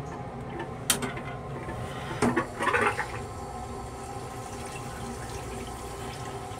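Rail car toilet flushing: a short rushing gush of blue flush fluid into a stainless steel bowl about two seconds in, after a sharp clack about a second in as the seat is flipped up. A steady hum from the rail car runs underneath.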